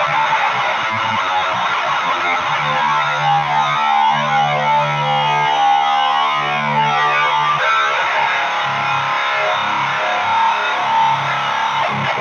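Heavily distorted electric guitar, a Jay Turser JT220TE tuned to B standard, played through a Boss HM-2 boosted by a Boss SD-1 into a Jet City JCA22H tube amp: the HM-2 'chainsaw' tone. Quick palm-muted chugging gives way to held chords about two and a half seconds in, and the chugging comes back at about eight seconds.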